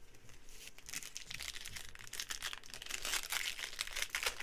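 Wrapper of a 2020-21 Donruss basketball trading card pack being torn open by hand, with dense crinkling that builds from about a second in and is strongest near the end.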